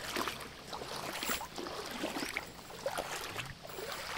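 Feet splashing and sloshing through the ankle-deep water of a shallow, stony river, in an irregular series of steps.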